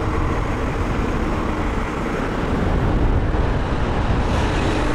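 Steady wind rush over the camera's microphone from a bicycle rolling fast down a paved road, with tyre noise on the asphalt.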